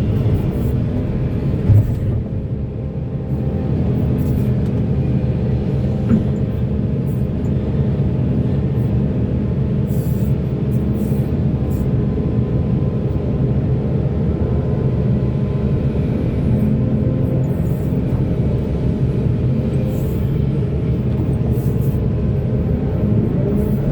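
Heavy diesel earthmoving machinery running steadily with a deep low rumble, with a sharp knock about two seconds in and another about six seconds in.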